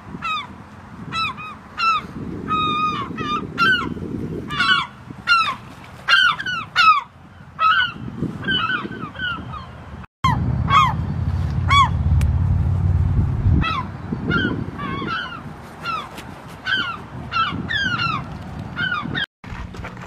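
Gulls calling again and again in short, arched cries, with a low rumble underneath. The sound cuts out abruptly for a moment about halfway through and again near the end.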